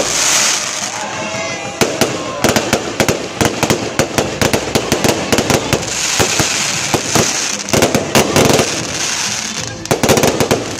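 Aerial fireworks going off: a rapid, irregular string of sharp crackling bangs and pops, with a hissing rush of sparks partway through.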